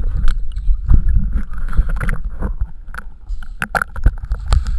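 Water sloshing against a waterproof action camera held at and just under a swimming pool's surface, heard muffled: a low rumble with many irregular clicks and knocks.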